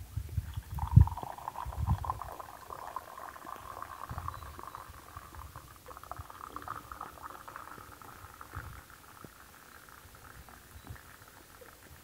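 Tea poured from a Turkish double teapot (çaydanlık) into a cup: a steady trickling pour that creeps slightly higher in pitch as the cup fills, first brewed tea from the small top pot, then hot water from the kettle. A few low thumps come in the first two seconds, the loudest about a second in.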